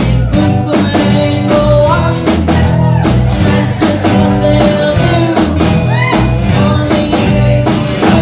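Live rock band playing, with electric guitar over a steady beat, and a young girl singing lead into a microphone.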